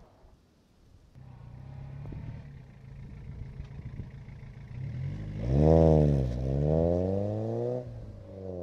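Peugeot 106 1.5 diesel with a Sportex 3-inch back box driving past and accelerating away, the exhaust note loudest as it pulls off. The pitch drops about six seconds in, then climbs again.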